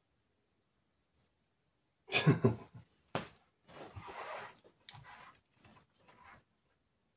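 A person's nose and throat sounds: a loud explosive burst about two seconds in, a sharp second one about a second later, then several softer breathy bursts.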